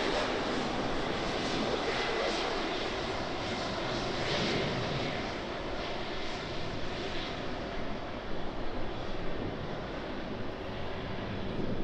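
Airliner's jet engines, a steady rushing noise that eases slightly in the second half.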